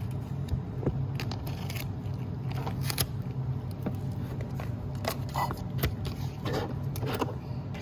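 Scattered small clicks and scrapes of plastic toy pieces being handled during assembly, over a steady low hum.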